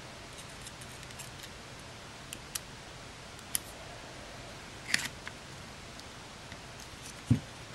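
Scattered small plastic clicks and taps from hands handling the open body of a Canon PowerShot SX130 IS compact camera under repair, over a steady low hiss. A single dull thump near the end is the loudest sound.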